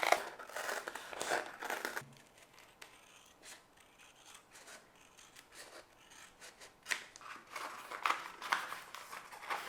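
Scissors cutting through a sheet of car sound-deadening foam, with rubbing and crinkling of the material. The snipping comes in two spells, one at the start and one from about seven seconds in, with a quiet pause between.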